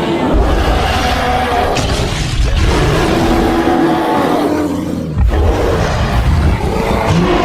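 Growling roar sound effect meant as a polar bear, loud and rough with a deep rumble, breaking off briefly about five seconds in and then starting again.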